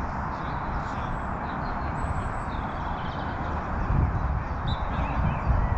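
Open-air ambience: a steady rushing noise with small birds chirping high above it, and low rumbling that grows heavier about four seconds in.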